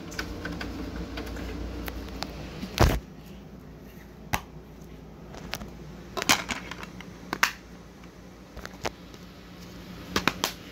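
Plastic clicks and knocks of a DVD being handled: lifted off a DVD player's open disc tray and snapped onto the hub of its plastic case. One louder knock comes about three seconds in, after a low hum, and scattered single clicks follow.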